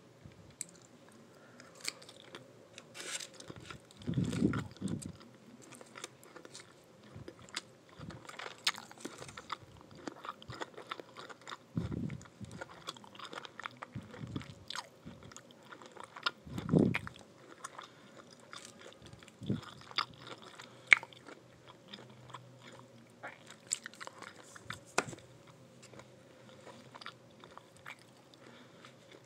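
A person chewing and crunching a meal of fried chicken wings and vegetable fried rice close to the microphone, with many small clicks and a few heavier bites about four, twelve and seventeen seconds in. A faint steady hum runs underneath.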